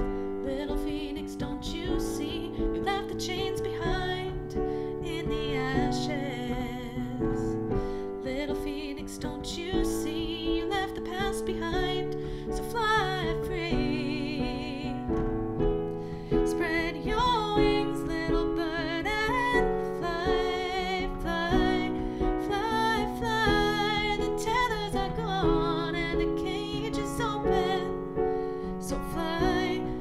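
Piano playing a slow instrumental passage of changing sustained notes, with a wavering, wordless melodic line above it that sounds like a voice.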